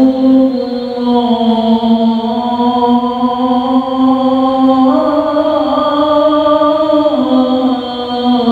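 A single male voice chanting a religious recitation in long held notes. The pitch steps up about five seconds in and drops back a little after seven seconds.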